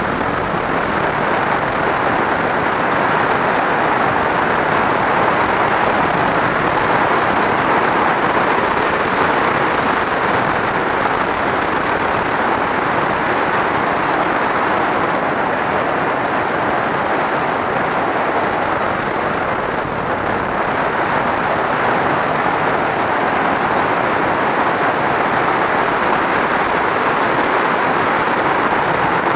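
Steady wind rush over a helmet-mounted camera on a motorcycle riding at road speed, with the bike's engine buried under it. The level stays even apart from a slight dip about twenty seconds in.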